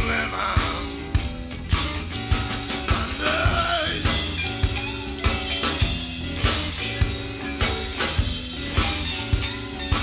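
Live band playing an instrumental rock passage: semi-hollow-body electric guitar lines over a steady drum beat.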